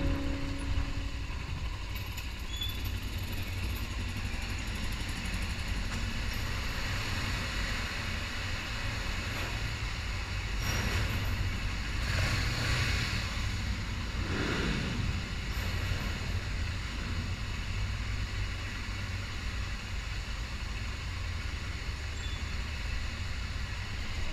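Trail motorcycle engine running steadily at low revs, with a few brief louder swells partway through.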